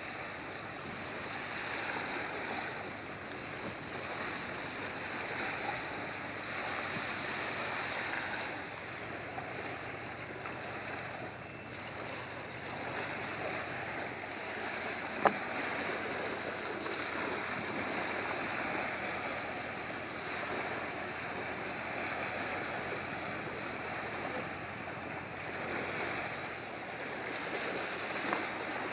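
Wind on the microphone and waves on open water, a steady rushing wash, with one sharp click about halfway through.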